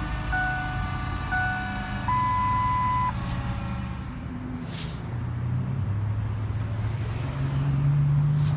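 Countdown-style beeps: short beeps about once a second, then one long, higher beep lasting about a second. Two whooshes follow, over a low steady rumble.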